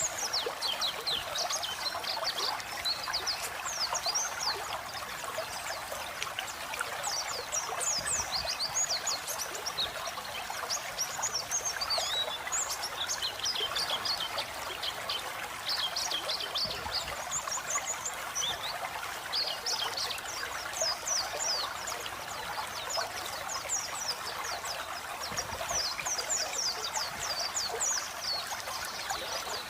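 White-eye (pleci) singing a fast, high twittering song of rapid short chirps over a steady sound of flowing water.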